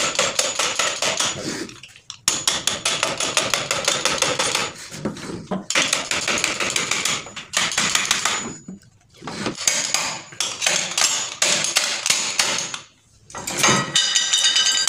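Rapid metal-on-metal tapping with a hand tool against the cast end cover of a monoblock water pump motor, knocking it loose, in runs of a few seconds with short pauses. Near the end it turns to clinking, as the cover comes free.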